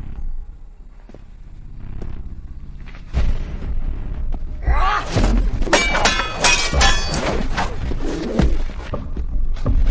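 Background music with a deep bass, with a rapid flurry of ringing metallic sword-clash sound effects and thuds from about five to seven and a half seconds in.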